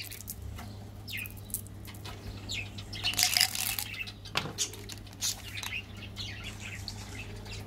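Small birds chirping in the background, mixed with scattered light clicks and rustles from sweet packaging being handled: a plastic candy tube and a foil chocolate wrapper.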